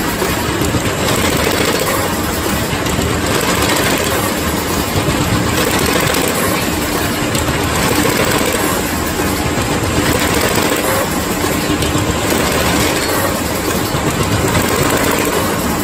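PK54-55 automatic business card slitting and collating machine running: a steady, fast mechanical clatter that holds even throughout.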